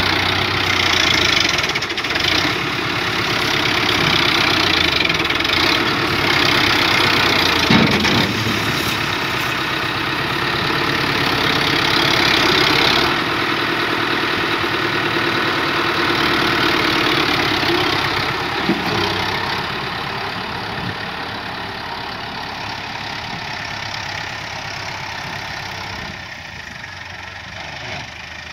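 Farm tractor's diesel engine running under load as it works a front dozer blade, with a single knock about eight seconds in. The engine fades over the last third as the tractor backs away.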